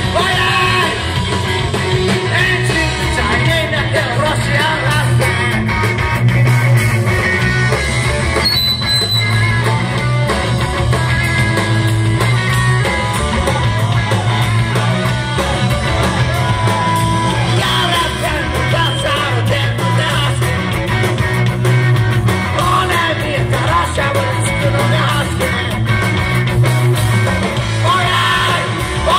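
A live rock band playing loud and without a break: a Yamaha drum kit, electric guitars and bass, with a man singing into the microphone.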